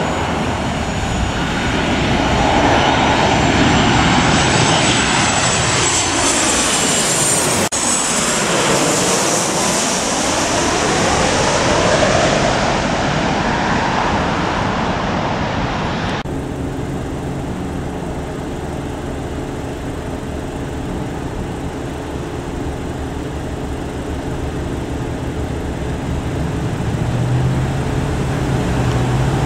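Boeing 737 jetliners on final approach passing low overhead, engines running. The first jet's high whine rises as it nears, then its sound sweeps down and back up as it passes. About halfway through, the sound cuts abruptly to the steadier, lower engine hum of the next approaching 737, which grows louder near the end.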